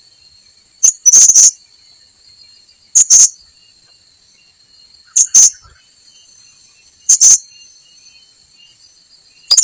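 Blue-crowned hanging parrot (srindit) giving short, shrill, high calls, one or two at a time about every two seconds, over a steady high-pitched drone of insects.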